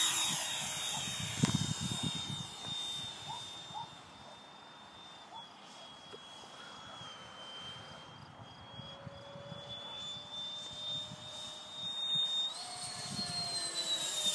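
Electric ducted-fan motor of a radio-controlled Mirage 2000 model jet, a steady high whine that fades as the model climbs away. About twelve seconds in it grows louder and jumps up in pitch as the jet comes back, then the pitch slides down near the end as it passes.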